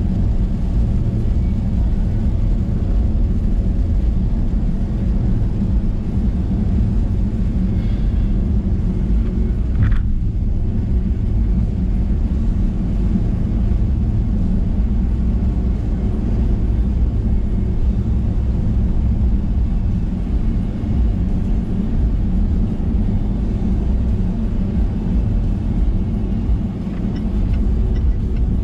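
Steady low rumble of a Range Rover Sport driving on a wet highway, heard from inside the cabin: engine and tyre noise on the wet road. A short sharp sound stands out about ten seconds in.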